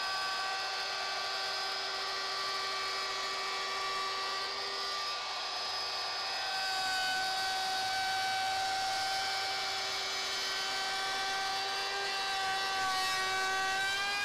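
Compact handheld router running at full speed with an edge-profiling bit while it is fed along the edge of a wooden board. It gives a steady high motor whine whose pitch shifts slightly about halfway through and again near the end as the load on the cutter changes.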